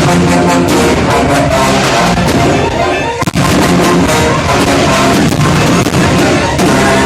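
Loud music playing over the repeated bangs and crackle of a fireworks display, with a short break a little after three seconds in.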